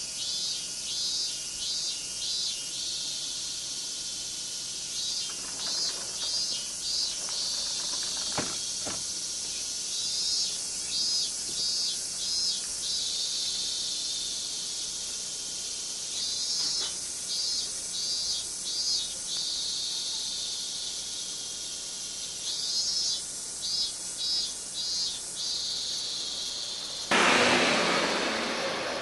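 Cicadas calling: a steady high drone with, over it, a pulsed call that comes in bursts of several beats, repeating about every five to six seconds. Near the end a loud rush of noise lasts about two seconds.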